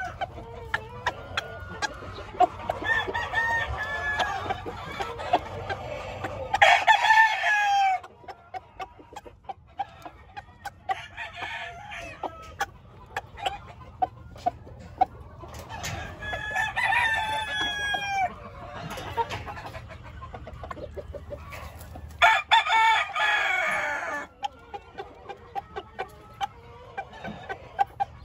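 Gamefowl roosters crowing, with three loud crows spread through, each about two seconds long, and softer calls of other birds in between. Short clicks are scattered throughout.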